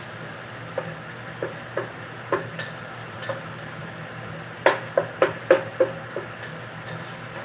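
A spoon stirring a pot of seasoned ground beef, knocking against the pot: scattered clinks, then a quick run of five or six knocks about two-thirds of the way through, over a steady low hum.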